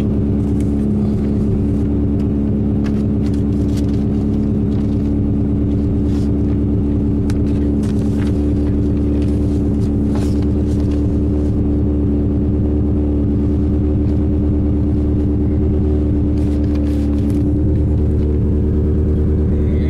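1980 Lotus Esprit S2.2's 2.2-litre DOHC 16-valve inline four with twin Zenith side-draft carburettors idling steadily on choke, warming up after a cold start, heard from inside the cabin.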